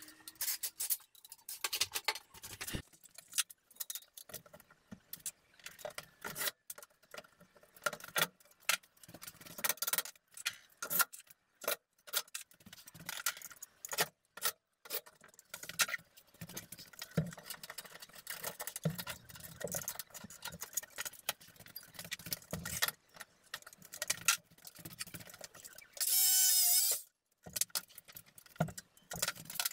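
Handling noise of drywall work: irregular clicks, knocks and light metallic clatter, with one loud burst about a second long near the end.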